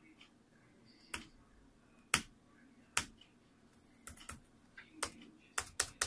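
Keys on an Acer TravelMate 240 laptop keyboard pressed one at a time while navigating the BIOS, making sharp single clicks. The clicks come about a second apart at first and quicker near the end.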